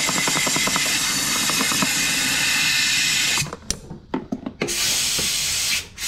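Aerosol carburetor cleaner sprayed into a lawn mower's fuel tank to flush it and dry out residual water. A long, steady hiss cuts off after about three and a half seconds, a few clicks follow, then a second, shorter spray of about a second.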